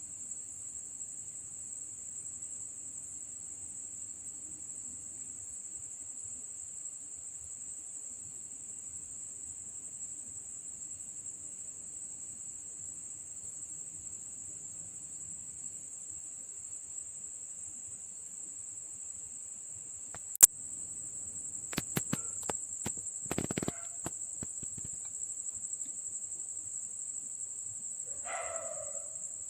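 Crickets chirping in a steady, high-pitched chorus. About two-thirds of the way through there is a sharp click, then a few more clicks, and a short call comes near the end.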